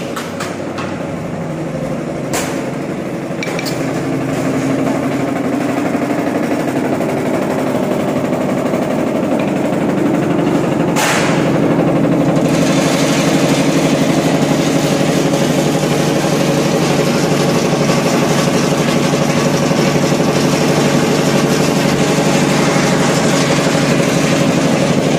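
Roasted peanut peeling and splitting machine running with a steady motor-and-rotor drone, growing louder over the first dozen seconds as roasted peanuts are fed in, then holding. Two sharp knocks about two and eleven seconds in.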